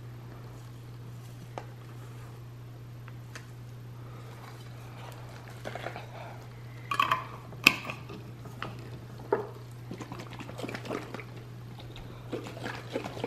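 Liquid sloshing and splashing in a container as it is handled and shaken, with a few knocks, the sharpest about two thirds in. A steady low hum runs underneath.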